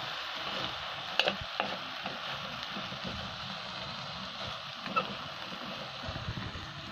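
Tomatoes and leafy greens sizzling as they sauté in a stainless steel pan over a wood fire, stirred with a metal spatula; the spatula clicks against the pan a few times early on and once more about five seconds in.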